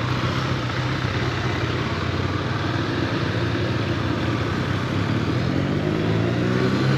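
Motorcycle engine heard from the rider's seat, running at low speed in town. Its pitch rises about five seconds in as it accelerates.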